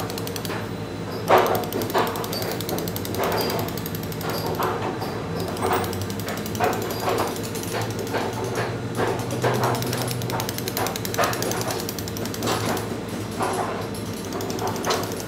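Steel chisel struck with a round metal carver's dummy, cutting into sandstone: sharp taps at an uneven pace, about one or two a second, over a steady low hum.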